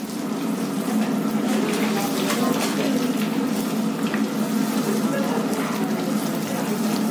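Boiled potato pieces deep-frying in a wok of hot oil: a steady bubbling sizzle over a low steady hum, with a few light scrapes as a wire skimmer is stirred through the potatoes.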